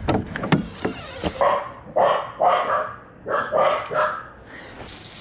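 A dog barking, a quick series of about six barks.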